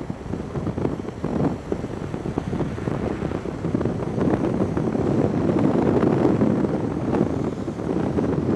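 Wind buffeting the microphone outdoors, an uneven rumbling rush that swells and dips.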